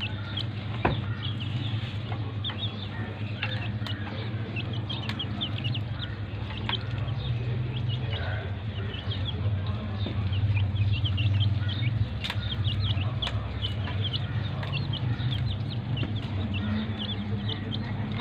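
Young chicks peeping continuously, many short high chirps overlapping, over a steady low hum. A few sharp clicks stand out, the loudest about a second in and near twelve seconds.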